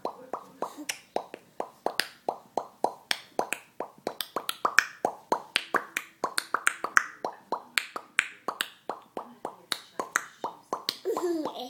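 Quick popping sounds made with the mouth, about four to five sharp pops a second, kept up without a break. Near the end a short wavering vocal sound.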